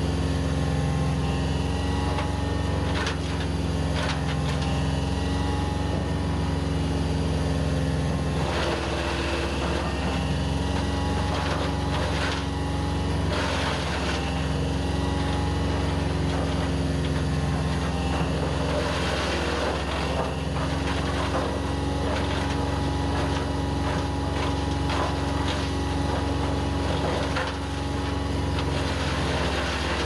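Avant CH100 hydraulic wood chipper running off an Avant 635 compact loader's diesel engine, a steady hum throughout, with short bursts of chipping noise several times as branches are fed in and cut.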